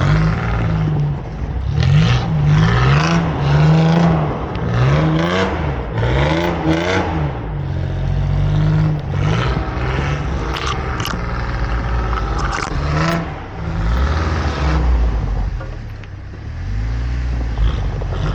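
4x4 truck engine revving up and down repeatedly under load through a shallow river crossing, with bursts of scraping and clattering noise.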